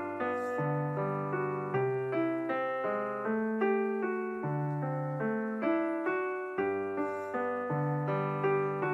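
Background piano music: an evenly paced run of notes over held bass notes.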